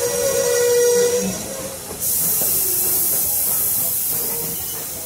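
Norfolk & Western No. 475, a 4-8-0 steam locomotive: a held tone fades out about a second in. About two seconds in, a loud hiss of escaping steam starts suddenly and keeps going.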